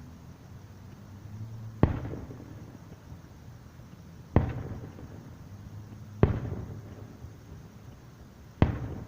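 Aerial firework shells bursting: four sharp booms about two seconds apart, each trailing off in a rumbling echo.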